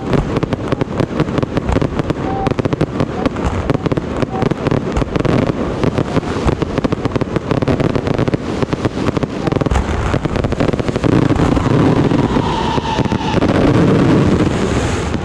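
A long string of firecrackers going off in a rapid, dense crackle of pops, growing into an almost unbroken rattle in the last few seconds.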